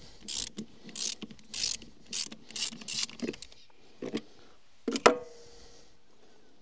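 Socket ratchet wrench clicking in quick strokes, roughly two a second, undoing the tappet-cover bolts on a GM Detroit Diesel 8V71 engine. A couple of knocks follow, then one loud metal clank that rings briefly about five seconds in.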